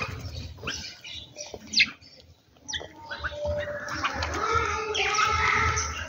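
A mixed flock of bulbuls and house sparrows chirping and calling while they feed, with sharp short chirps, a brief lull about two seconds in, then busier chattering toward the end.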